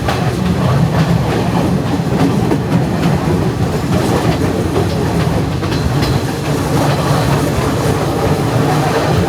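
Passenger train running along the track, with a steady rumble and wheels clattering over the rails, heard from on board.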